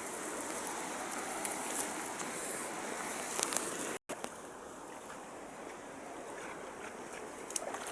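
Steady rush of flowing stream or river water. It breaks off briefly about four seconds in and continues a little quieter.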